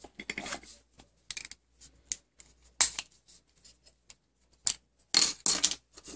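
Small model-car parts clicking and clacking as a scale-model 1965 Mustang is pried apart with a small screwdriver and its pieces are set down on a cutting mat: scattered short clicks, with a quick run of louder clacks near the end.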